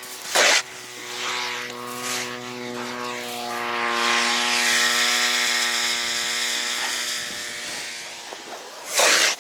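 A motor engine runs with a steady hum that swells and then fades over about seven seconds, like a machine passing by. A short, loud burst of noise comes just before it and again near the end.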